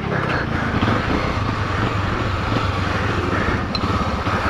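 Honda XRE300's single-cylinder four-stroke engine running steadily at low speed while the bike is ridden slowly.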